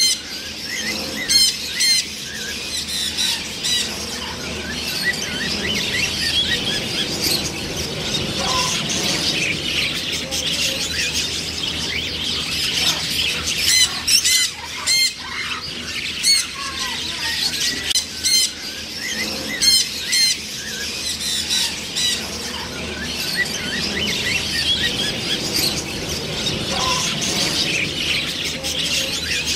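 Macaws squawking: loud single squawks stand out a few times near the start and in a cluster around the middle, over a continuous chatter of many birds calling.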